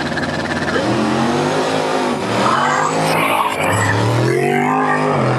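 Drag race car accelerating hard down the strip, its engine pitch climbing and dropping back a few times as it shifts up through the gears.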